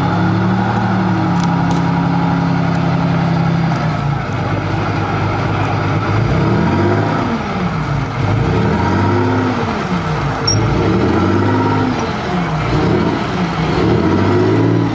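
Engine of a tracked armoured vehicle running close by. It holds a steady note at first, then from about halfway through rises and falls in pitch over and over as the vehicle drives past.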